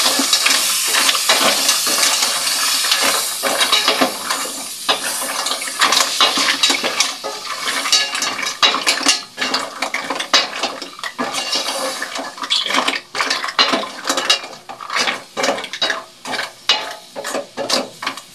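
Mussels in their shells being stirred with a wooden spoon in a stainless steel pot, the shells clacking against each other and the pot over a sizzle. The sizzle dies down after about four seconds, and the clacking grows sparser toward the end.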